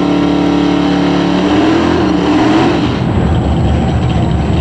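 Mustang drag car's engine held at high revs during a burnout, its pitch wavering. About three seconds in it drops to a low, uneven, lumpy idle.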